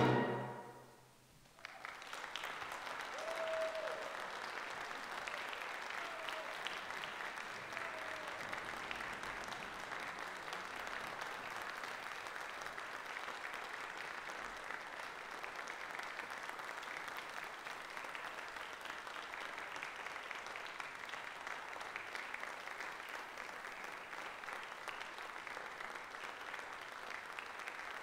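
A wind band's final chord cuts off right at the start and dies away in the church's reverberation; after about a second and a half of quiet, the audience breaks into steady applause.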